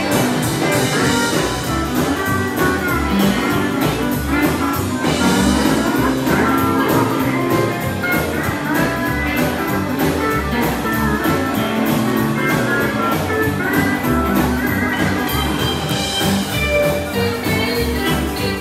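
Country band playing an upbeat Bakersfield Sound dance tune, with guitar over a steady, regular bass beat.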